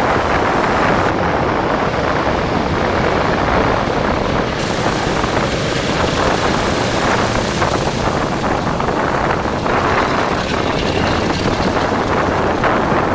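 Boeing B-17 Flying Fortress's four Wright R-1820 Cyclone radial engines running steadily, with wind buffeting the microphone.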